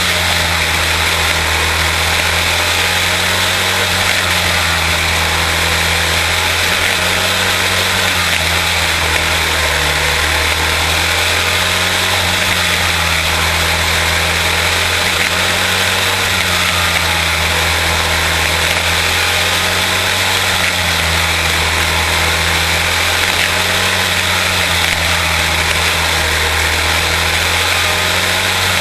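Quarter midget race car's single-cylinder Briggs & Stratton Animal engine running loud and steady under race throttle. Its note rises and falls a little every few seconds.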